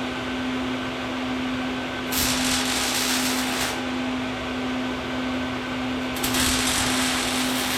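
Welder humming steadily, with two stretches of hissing arc crackle: one about two seconds in lasting a second and a half, and another starting about six seconds in.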